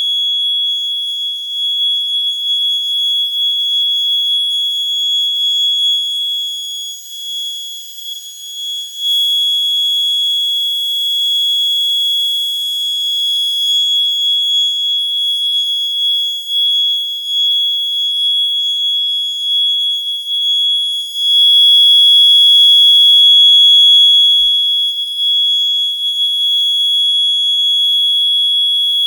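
FCI-rebranded Wheelock mini horn fire alarm sounding through its piezoelectric smoke-detector buzzer: one continuous, shrill, high-pitched tone with no pauses. Its loudness wavers, dipping briefly about a quarter of the way in and swelling for a few seconds later on.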